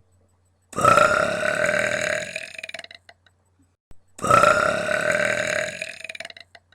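A woman belching deliberately twice: two long, loud burps of about two seconds each, the second starting a second or so after the first ends.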